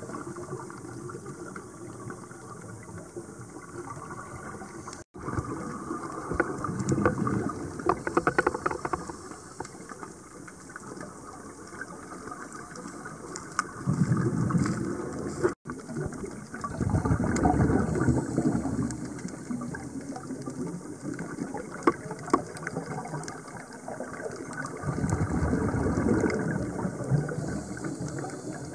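Scuba divers' exhaled air bubbling out of their regulators underwater, in several bursts of a few seconds each over a constant low rumble.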